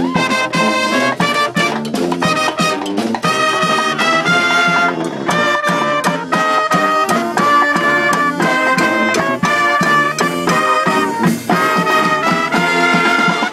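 Brass street band playing an up-tempo tune: trumpets and trombones over a steady drum beat, the music stopping right at the end.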